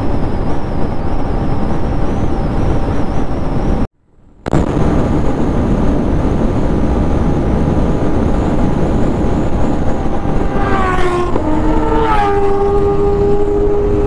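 Yamaha MT-15's 155 cc single-cylinder engine running at highway speed under heavy wind rush; the sound cuts out for about half a second around four seconds in. Near the end, a pitched tone slides down twice and then holds a steadier, lower note.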